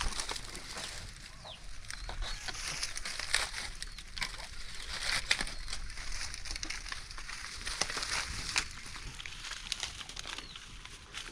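Chickens clucking, with many short clicks scattered through.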